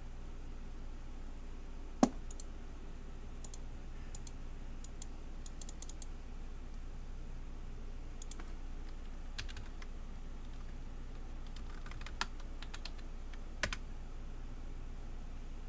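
Computer keyboard keystrokes and clicks, scattered and in short runs, over a steady low hum, with one sharper, louder click about two seconds in.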